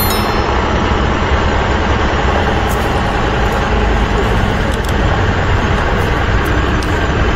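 Truck engine running steadily with a continuous low rumble.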